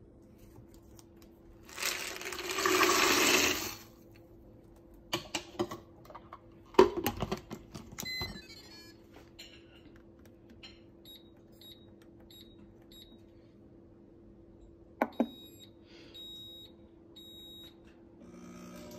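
Dry roasted peanuts poured into a blender pitcher, a rush of noise lasting about two seconds, followed by a few knocks and clicks as the pitcher is handled. Then several runs of short high beeps from the Pampered Chef Deluxe Cooking Blender's control panel as its buttons are pressed.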